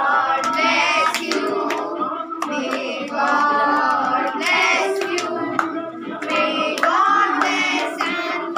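A group of children and adults singing a birthday song together, clapping along in time at about two claps a second.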